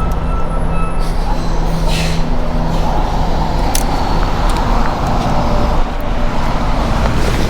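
Steady road traffic noise from a nearby highway, cars and trucks passing, with a few short sharp clicks about one, two and four seconds in.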